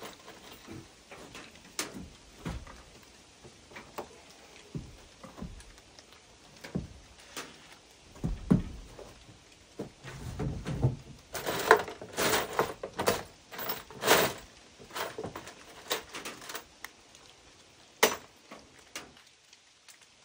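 Tools and gear being handled and set down: irregular knocks, bumps and rattles, with a few low thuds and then a busier run of sharp clatters about halfway through.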